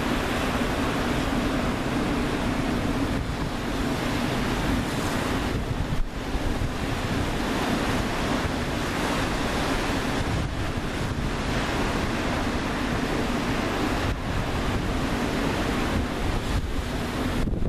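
Wind buffeting the microphone over the rush of sea water from a cruise ship under way, with a low steady hum underneath. There is a brief knock about six seconds in.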